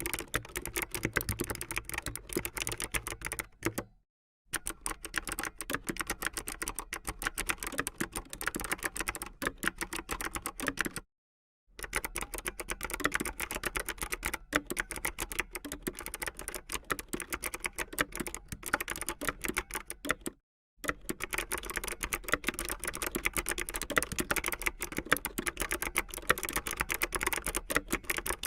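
Optical gaming keyboard being typed on fast, a dense run of sharp key clicks, broken by three brief silent gaps.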